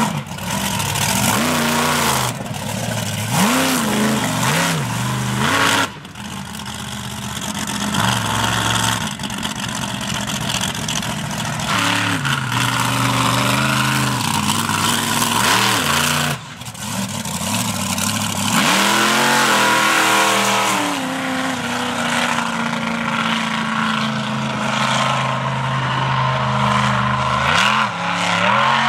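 Monster truck engines revving hard, the pitch climbing and dropping again and again as the trucks drive and spin on grass. The sound breaks off suddenly twice and picks up again.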